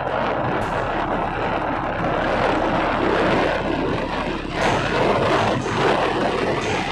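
A loud, steady rushing noise with no clear pitch, rising and falling a little in strength.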